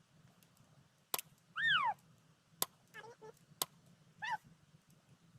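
Three sharp cracks from a BB gun being fired, spaced a second or so apart, with animal calls between them: one arched call that rises then falls, and a few shorter calls.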